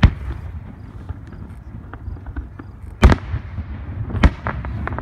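Aerial fireworks shells bursting: a sharp bang at the start, the loudest about three seconds in, and another a little after four seconds, with smaller pops between them over a low rumble.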